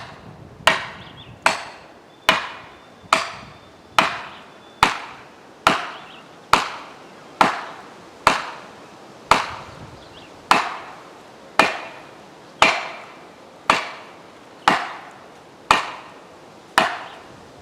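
Felling wedges driven into the back cut of a white spruce with steady hammer blows: about nineteen sharp, ringing strikes, roughly one a second, slowing slightly in the second half.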